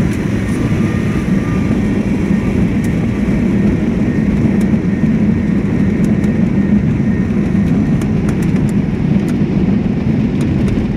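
Cessna 172's piston engine and propeller running, a steady low drone heard from inside the cabin as the plane rolls along the runway after landing. Faint high ticks sound now and then over it.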